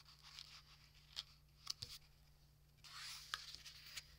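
Faint paper handling as folded cardstock is pressed flat, with a few soft taps, then a bone folder rubbing along the fold to crease it near the end.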